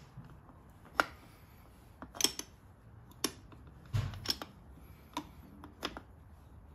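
Irregular sharp metallic clicks and clinks, about one or two a second, of a socket wrench being worked on the clamp bolt of a Keihin FCR carburetor.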